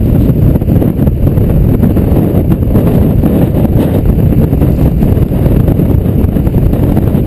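Strong wind buffeting the microphone: a loud, steady low rumble of noise.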